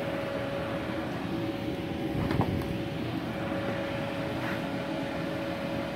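Multipro MIG-MAG 250NF G-KR inverter welder switched on and idling, its cooling fan running with a steady hum and a held mid-pitched tone. There is a brief low thump a little over two seconds in.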